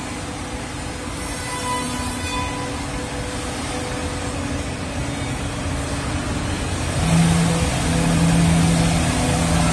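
CF SC4X4 CNC mortiser and tenoner running, its four-spindle cutting heads working wooden parts: a steady mechanical whir over a constant low hum. It grows louder about seven seconds in, with a steady low tone.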